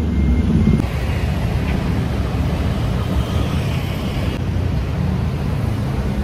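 Outdoor city street ambience: a steady low rumble of traffic with a noisy background haze. The background shifts abruptly about a second in and again a little past four seconds in.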